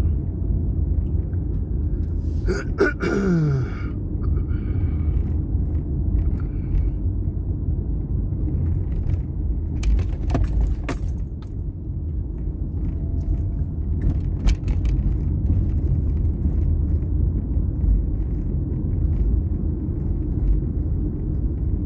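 Car heard from inside the cabin while driving: steady low rumble of engine and road noise, with a few short clicks or rattles.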